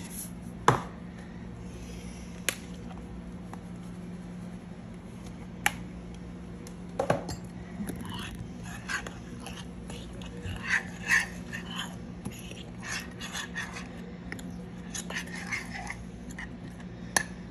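Metal measuring spoon stirring and scraping through seasoned flour in a glass baking dish, with a few sharp taps against the dish in the first seven seconds. A low, steady hum underneath.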